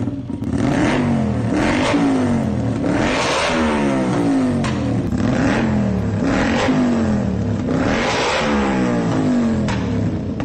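Honda CX500 V-twin engine being revved in a series of short throttle blips, about one every second or so, the pitch falling back after each one.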